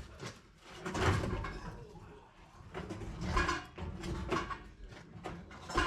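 Irregular knocks and scraping from work being handled, several separate bangs a second or so apart, the loudest about a second in and another near the end.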